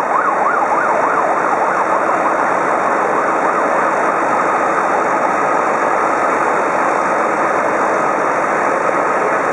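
Emergency vehicle siren wailing up and down quickly, about three times a second, fading out after about four seconds over steady background noise.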